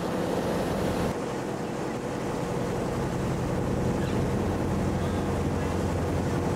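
A passenger boat's engine running with a steady low hum, mixed with a rush of wind and water noise on the open deck. The high hiss eases about a second in.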